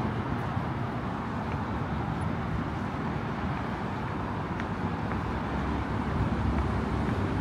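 Steady low rumble of road traffic, with a few faint ticks.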